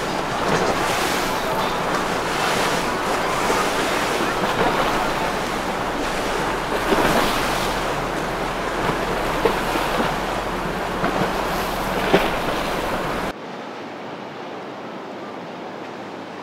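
Wind blowing across the microphone over the rush of waves, a loud, steady noise with a few brief gusts. About 13 seconds in it cuts off abruptly to a quieter, duller background.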